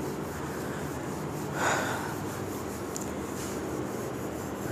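Whiteboard duster wiping a whiteboard, soft rubbing over a steady room hum, with one brief louder rush of noise about a second and a half in.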